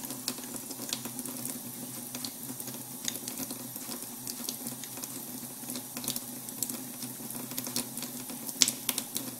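Makeup brush being swirled and worked in a small pot of wet, lathered goat-milk brush shampoo: wet squishing and fine crackling of foam with scattered small clicks, over a steady low hum. The lather is lifting dried alcohol-based Skin Illustrator paint out of the bristles.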